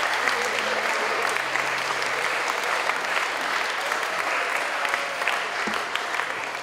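Audience applauding: a dense, steady patter of many hands clapping, easing a little near the end.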